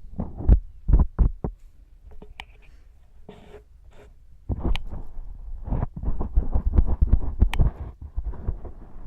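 Earwax-cleaning tools working close to the microphone inside a silicone ear model packed with sticky fake earwax: a few dull thuds near the start, then from about halfway a dense, irregular scratching and crackling with low thumps.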